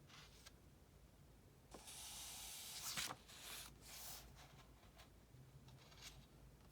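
A book page being turned: paper sliding for about a second and a half, ending in a sharp flick, then a couple of softer paper rustles.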